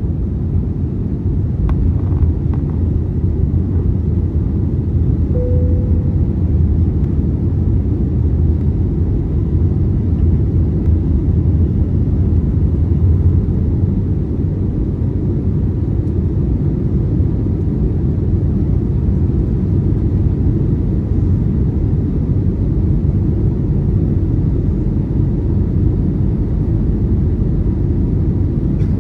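Steady low rumble of an Airbus A321neo cabin in flight: engine and airflow noise heard from a window seat, with a brief short tone about five seconds in.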